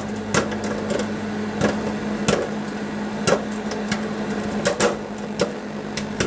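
Microwave popcorn popping inside a running microwave oven: irregular sharp pops, roughly two a second, over the oven's steady hum.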